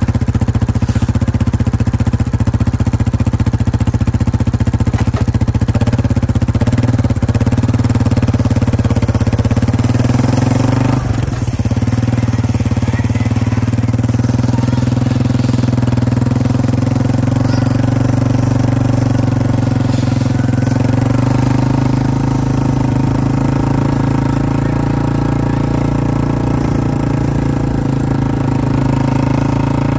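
Engine of the vehicle towing a snow tube, running steadily under a light load, with a small dip in level about eleven seconds in.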